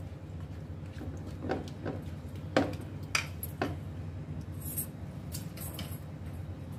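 A metal spoon knocking and clinking against an aluminium pot while oily mango pickle is stirred, about five knocks in the first four seconds and lighter clicks after, over a low steady hum.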